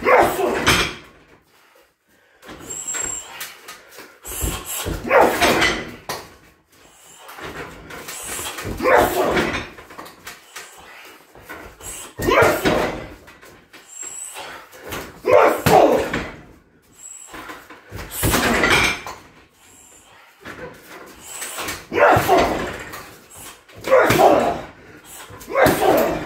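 Kicks and strikes landing on a 60 kg heavy punching bag, a loud impact about every three to four seconds, roughly eight in all, with the bag swinging on its chains between strikes.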